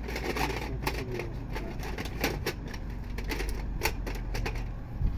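Irregular light clicks and knocks of copper refrigerant pipes being handled at an air-conditioner compressor, over a low steady hum, with one sharper knock near the end.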